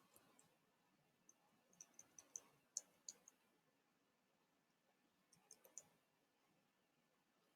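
Faint, sharp clicks from a computer's mouse or keyboard, in two short groups: several between one and three seconds in, and a few more near six seconds.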